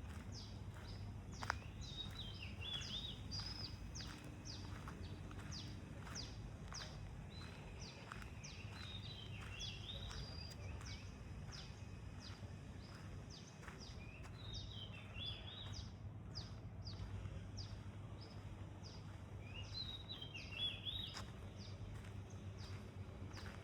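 A songbird singing a short warbling phrase, repeated four times a few seconds apart. Beneath it run quick, regular high chirps and a steady low background rumble.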